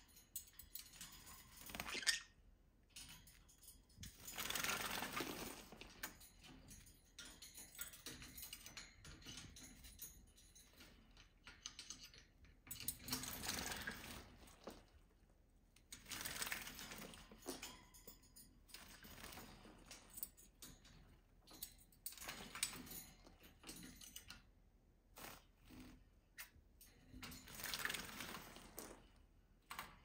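Green-cheeked conure bathing in a stainless steel water cup: several bursts of splashing a second or two long, with light clicks and taps against the metal cup in between.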